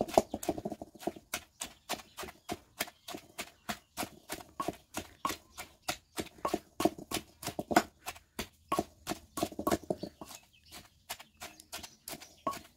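A pestle pounding aromatics in an earthenware mortar, a steady run of dull knocks at about four strokes a second, crushing the herbs into a paste for a fish curry sauce.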